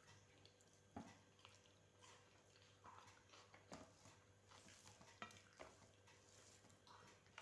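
Faint eating sounds: soft chewing with a few wet mouth clicks and smacks, over a low steady hum.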